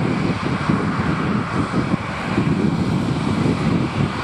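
Jet airliner engines running at taxi power, a steady rush heard from across the airfield, with wind rumbling unevenly on the microphone.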